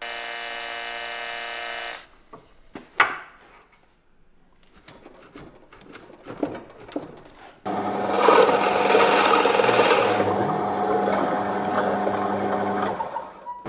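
A Makita cordless drill spins for about two seconds, followed by a few light clicks and a sharp knock. About halfway through, a bench drill press starts up and bores a Forstner bit into a wooden block, its motor hum steady under the cutting noise for about five seconds before stopping near the end.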